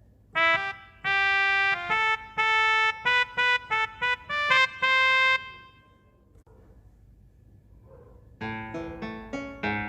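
Casio CT-S300 keyboard playing a short melody of held notes on a brass-like voice, each note stopping abruptly. After a pause of about three seconds, a different voice starts near the end with quicker notes that fade away.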